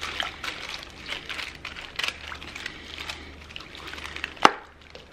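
Wooden spoon stirring salsa, onion rings and chicken in a plastic-lined slow cooker: irregular wet squishing with crinkling of the plastic liner. A single sharp click comes about four and a half seconds in.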